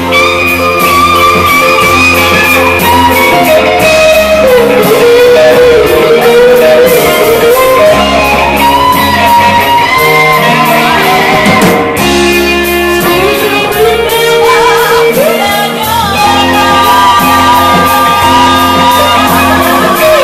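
Live band playing a blues-rock song: a Fender electric guitar plays bending, wavering lead lines over bass, drums and keyboard.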